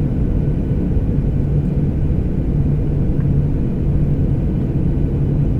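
Steady low rumble of jet airliner engines overhead, with a constant low hum running under it.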